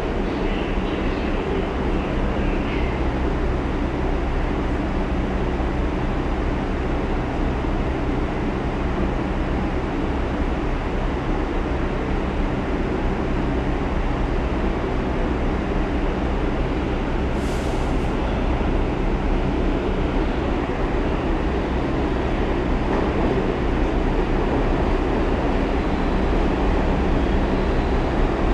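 Inside a New York City R62A subway car running on the line: a steady rumble of wheels and traction motors on the track, with a low hum underneath. About two-thirds of the way through there is a short high hiss.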